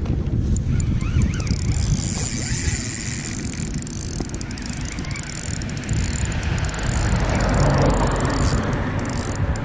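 Heavy wind rumble on the microphone, with clicks from a spinning reel near the start and again near the end as a hooked pike is played on a bent rod.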